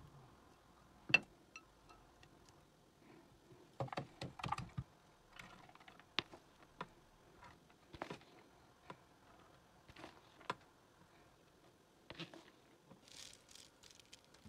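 Scattered light clicks and knocks of a utensil and food against a nonstick cooking pot while chicken and rice are layered into it, the loudest knock about a second in and a quick run of knocks around four seconds, with a few short scrapes near the end.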